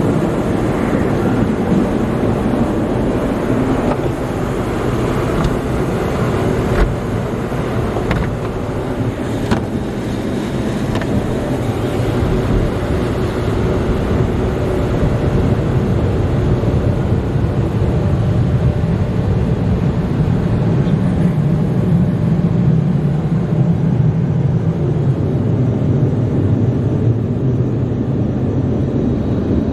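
Car wash tunnel dryer blowers, heard from inside the car as a loud, steady rush of air while the water is blown off the glass, with the noise running on unbroken as the car rolls out of the tunnel.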